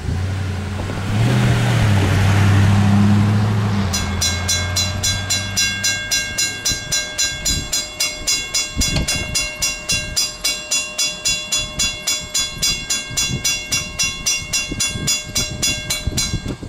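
A steam locomotive's whistle blows one long, low blast over a rush of steam, for about four seconds. Then a railroad crossing bell starts ringing at about four strokes a second and stops just before the end.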